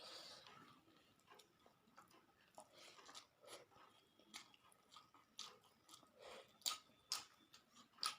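A person chewing a mouthful of rice and fish, heard faintly as wet mouth clicks and smacks, roughly one or two a second.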